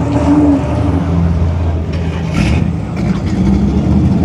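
A car engine running with a steady, low rumble.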